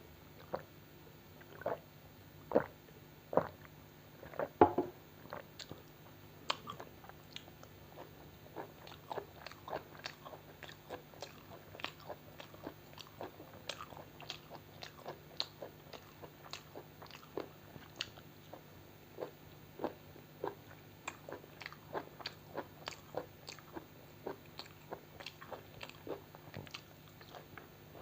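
Close-up chewing and biting of food: a few louder bites in the first five seconds, then a quick, irregular run of small mouth clicks.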